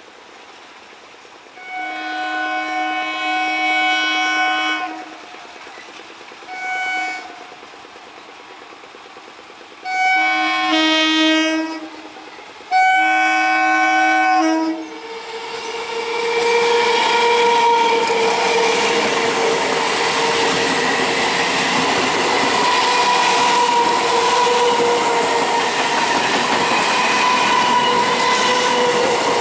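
Indian Railways electric train's air horn sounding four blasts: a long one, a short one, then two of about two seconds each. The train then passes close by, its wheels clattering over the rails, with a steady whine running through the noise.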